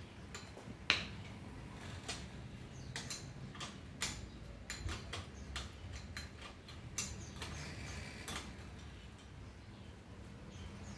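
Irregular metallic clicks and taps of hand tools on a bicycle crankset and pedal as it is taken apart, the sharpest about a second in.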